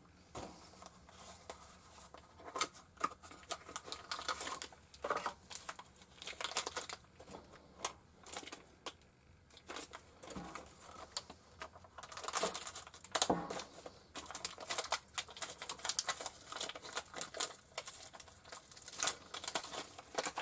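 Packaging being crinkled and torn off a quick-change tool holder: an irregular run of crackles and rustles with sharp clicks, busiest in the second half.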